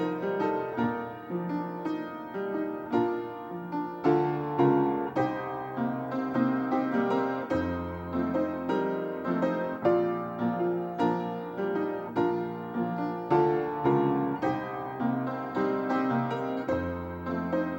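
Piano playing a slow instrumental piece, struck notes and chords following one another steadily, with deep bass notes about halfway through and again near the end.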